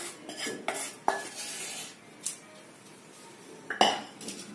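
Wooden spatula scraping and knocking paste out of a cooking pan, a quick run of taps in the first second, then a quieter stretch. Near the end one louder clunk as the pan is set down on the counter.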